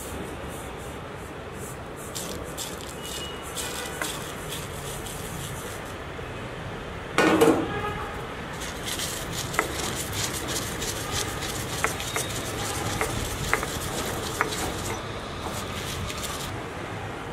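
Stone pestle pounding dried red chillies and whole spices in a stone mortar: one loud knock midway, then a run of irregular stone-on-stone knocks and grinding for several seconds, over a steady background hiss.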